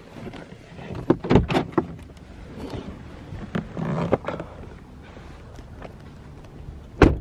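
Getting out of a 2019 Jeep Compass Trailhawk: clicks, knocks and rustling as the driver's door is opened and she climbs out, then the door shut with a single loud thud near the end.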